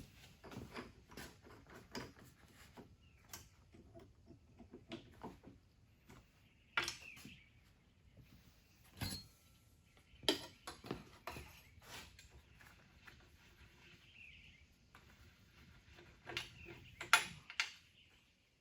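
Scattered clicks, clinks and knocks of metal tools and parts being handled, with louder knocks about 7, 9, 10 and 17 seconds in.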